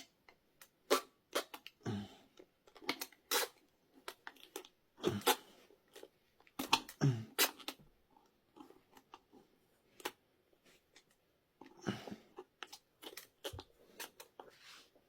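Irregular clicks, knocks and scraping as hands and a lever work a tight rubber tyre off a scooter's 8.5-inch rear wheel rim.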